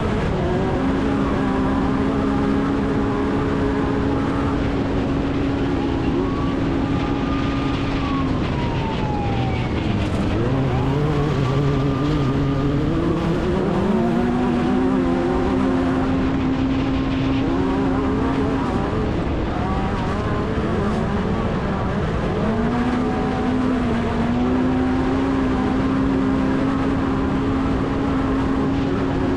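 Off-road race vehicle engine running hard. It holds a steady pitch for long stretches, drops away about eight seconds in and climbs back up in steps, then dips and recovers twice more later on.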